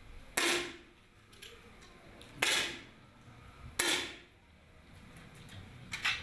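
Three 10 m air rifle shots, each a sharp pop with a brief echoing tail, about two seconds and then a second and a half apart. A fainter sharp sound comes just before the end.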